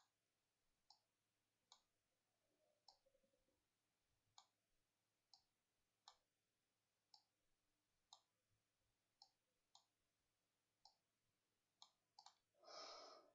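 Faint clicks of a computer mouse, about one a second at uneven spacing, as lines and labels are drawn on a chart. A short intake of breath near the end.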